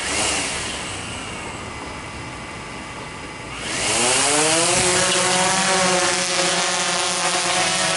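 DJI Phantom 3 Advanced quadcopter's propellers spinning at idle on the ground, then about three and a half seconds in the motors spool up with a rising whine and the drone lifts off, buzzing steadily and louder.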